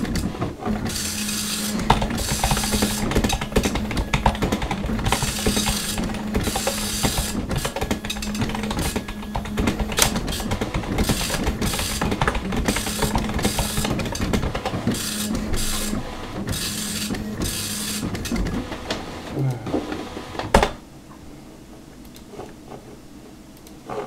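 Dot-matrix printer printing: repeated passes of the print head, each a dense rasping clatter lasting about half a second to a second, with short pauses between, over a steady low hum. It stops abruptly near the end, leaving a faint hiss.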